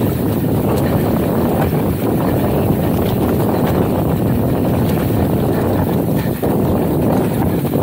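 Wind buffeting the camera microphone and mountain bike tyres rolling over sandy dirt on a trail descent, with scattered knocks and rattles from the bike.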